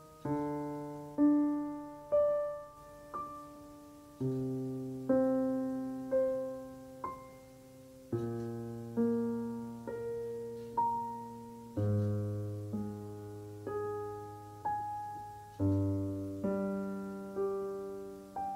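Solo piano playing slowly, a chord or note struck about once a second and left to ring and fade, over a bass that changes every few seconds.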